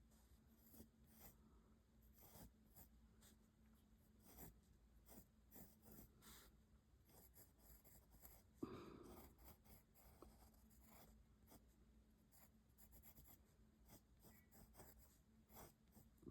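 Faint graphite pencil strokes on drawing paper: many short scratchy strokes of pencil sketching, with one brief louder sound about halfway through.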